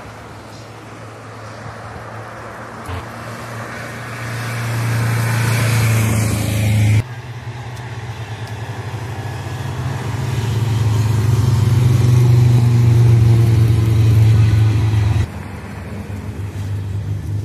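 Hill-climb race cars at full throttle, one after another. Each engine note swells as the car draws near, then cuts off suddenly, about seven seconds in and again near the end.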